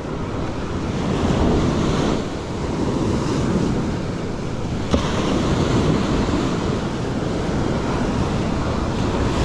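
Ocean surf washing and breaking on a sandy beach, with wind buffeting the microphone, rising and falling in slow swells. There is a single short click about five seconds in.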